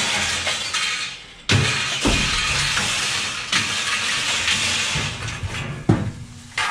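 Metal scrap, wire-mesh shelving racks and poles, clattering and crashing as it is thrown out of the back of a van onto a scrap heap, with a sharp crash near the end.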